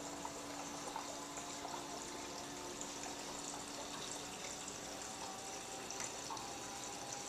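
Water trickling and splashing steadily in a reef aquarium's circulation, with a low steady hum that stops about four seconds in.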